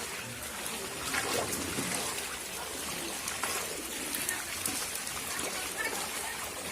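Running water trickling and streaming steadily, with faint splashes.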